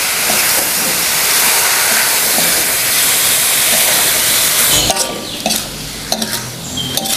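Tofu and chillies stir-frying in a wok: a loud, steady sizzle as a little water hits the hot oil, with a metal spatula stirring. About five seconds in the sizzle dies down, and the spatula's scrapes and clicks against the wok come through.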